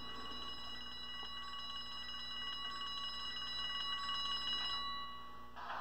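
Locomotive bell from the ESU LokSound sound decoder in an HO-scale Rapido ALCO FA-2, ringing steadily and fading out toward the end. Just before the end the model's diesel engine sound starts up.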